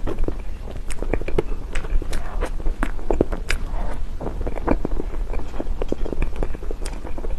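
Close-up eating of chocolate cake: biting and chewing, with many short, irregular wet mouth clicks and smacks.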